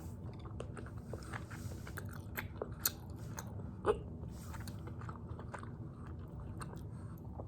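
Loud, close-up chewing of a mouthful of spicy tteokbokki, the chewy rice cakes in sauce: a steady run of wet mouth clicks and smacks, with a couple of louder ones around the third and fourth second.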